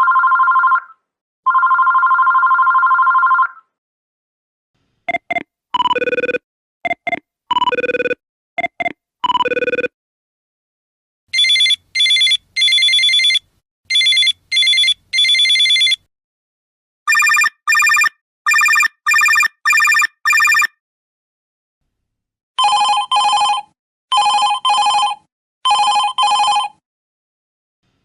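A series of different electronic cellphone ringtones, one after another with silent gaps between: first a two-tone ring sounding twice, then a short beeping melody of quick notes, then several high warbling trill rings in bursts of two to five.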